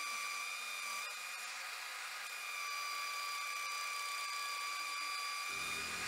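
Metal lathe turning a steel camlock back plate, the tool cutting at its face with a steady high-pitched whine, which eases for about a second and a half near the start. Music comes in just before the end.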